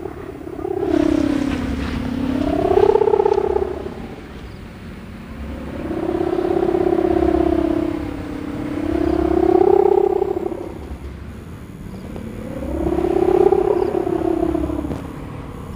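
Kite hummer (sendaren), the strung bow on top of a flying kite, humming in the wind. The hum swells and fades about five times, its pitch sliding up and down with each gust.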